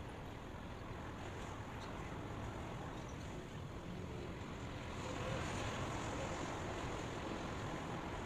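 Steady white noise: an even rushing hiss that swells slightly about five seconds in.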